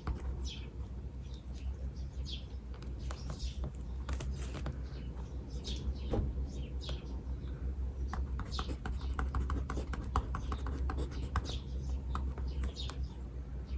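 Small birds chirping again and again in short, quick downward notes, over a steady low hum, with a run of rapid light ticks in the middle.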